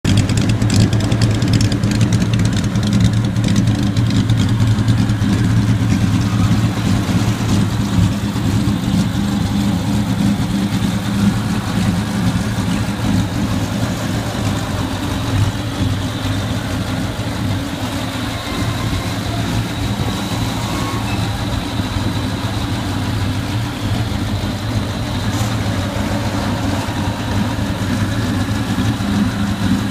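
Bugatti Type 35's 2-litre straight-eight engine, fed by two Solex carburettors, idling steadily with a low, even note.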